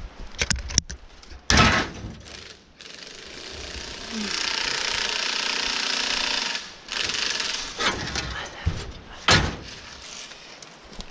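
A cordless impact wrench runs steadily for about four seconds and then again briefly, hammering at the nuts on a fire-melted trailer axle's U-bolts. There is a sharp metal clank about a second and a half in and another near the end.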